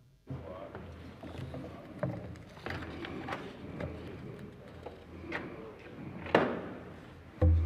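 Live church microphone feed cutting in: a low hum with scattered clicks and knocks, the loudest knock about six seconds in and a heavier low thump near the end.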